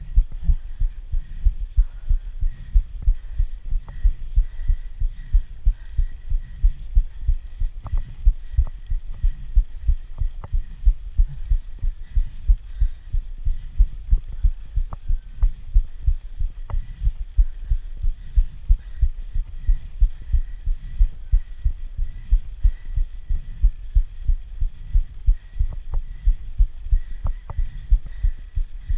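Muffled low thumping in a quick even rhythm, about two or three a second, picked up by the rider's body-worn action camera in time with his pedalling on a mountain-bike climb, with a few faint ticks from the bike.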